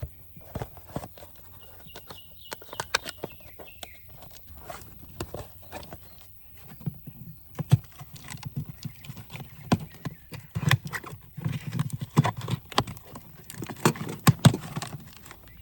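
Irregular clicks, taps and knocks of hands unboxing and handling a replacement saltwater-chlorinator electrode and its packaging, busiest in the last few seconds.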